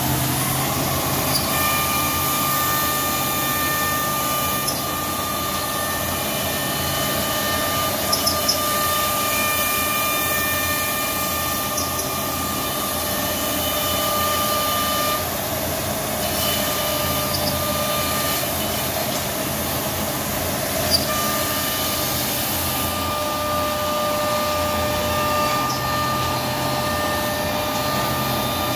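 CNC router spindle running and routing through a wooden sheet: a steady high whine over a constant noisy rush. The whine drops out briefly a couple of times, and there are a few light clicks.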